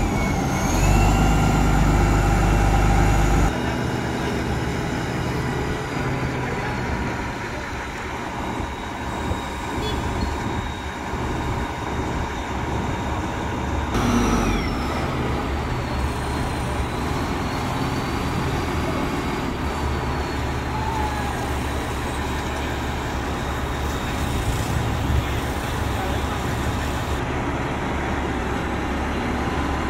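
A heavy engine running steadily, with voices of people talking over it.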